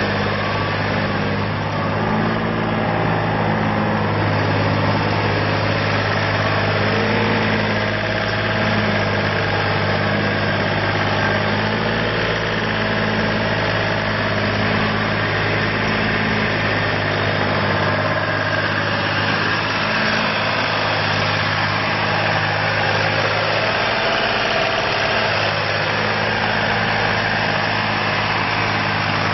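Engine of a Ditch Witch RT45 ride-on hydraulic trencher running at a steady speed while the machine drives and turns.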